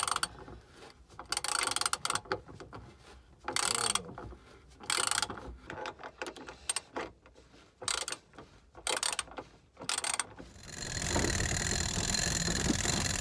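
Socket ratchet wrench clicking in about ten short bursts as nuts are run down on bolts through a wooden backing plate for the outboard lift mount. Near the end the clicking stops and a steady rushing noise takes over.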